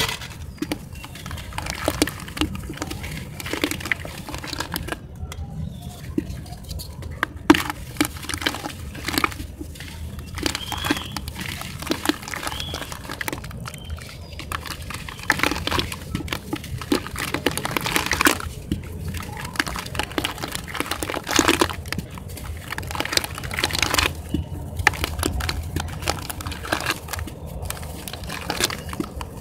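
Hands squeezing and crumbling a water-soaked sand-cement block in a basin of water: irregular wet crunching and crackling, with squelches and small splashes.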